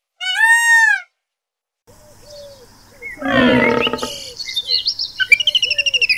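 Peacock (Indian peafowl) giving one loud, arching, high-pitched call. After a second's gap comes a mix of animal calls: a rough, harsh call about three seconds in, short repeated chirps, and a fast chirping bird trill near the end.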